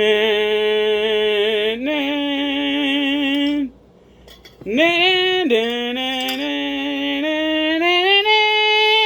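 A voice singing a wordless tune in long held notes that step up and down in pitch, with a short break about midway.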